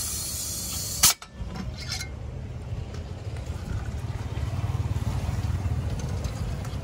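High hiss of pressurised gas, cut off by one loud sharp pop about a second in, followed by a steady low rumble.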